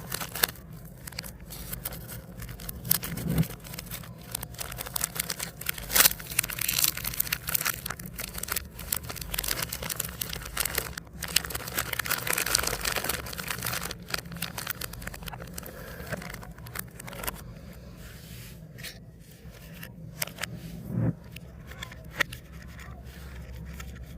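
Plastic snack wrappers crinkling and tearing as packets of biscuits and chocolate are handled and opened, with many sharp crackles and clicks; the handling thins out to occasional clicks in the last few seconds.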